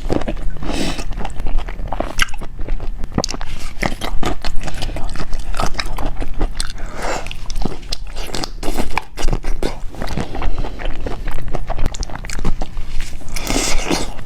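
A person biting and chewing crunchy food, with many sharp, irregular crunches.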